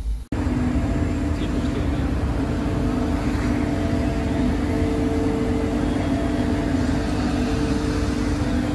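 Steady hum and noise of workshop machinery, with a constant droning tone; a snatch of music cuts off about a third of a second in.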